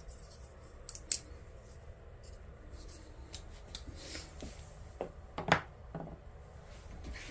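Handling noises from folding knives being moved about: a few short clicks, taps and light rubbing, with sharper clicks about a second in and about five and a half seconds in.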